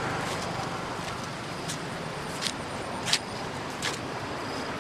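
Steady outdoor background noise broken by four sharp clicks, the loudest about three seconds in.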